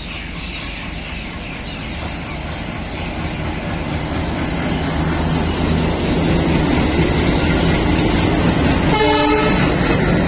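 ALCO diesel locomotive passing close by, its engine drone growing steadily louder as it comes up and goes past. A short blast of its multi-tone horn sounds near the end.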